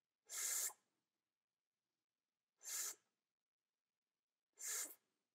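Three short breaths into a close microphone, about two seconds apart, each about half a second long, with dead silence between them.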